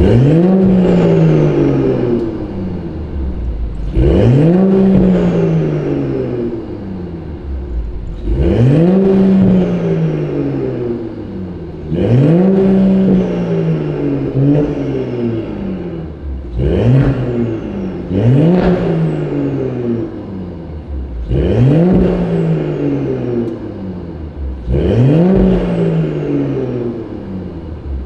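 Mercedes-Benz W223 S560e's turbocharged inline-six, fitted with a titanium aftermarket exhaust and 300-cell downpipe, blipped in place eight times. Each rev jumps up sharply and falls back slowly, with a thin falling whistle.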